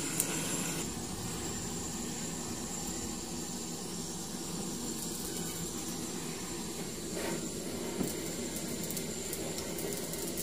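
A handheld butane gas torch hisses for the first moment, then a steady low background noise goes on, with a single faint click about eight seconds in.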